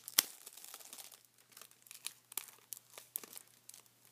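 Plastic wrapping on a Blu-ray case crinkling and tearing as it is peeled off by hand, in irregular crackles with a sharp snap about a quarter second in.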